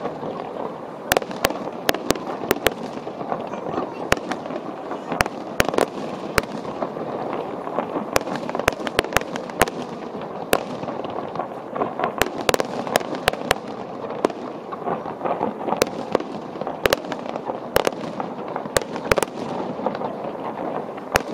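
Aerial firework shells bursting: dozens of sharp bangs at irregular intervals, sometimes several within a second, over a steady background of voices.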